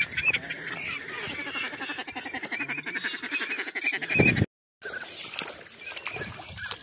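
Ducks calling in a rapid run of short, repeated quacks, broken off by a brief dropout about four and a half seconds in.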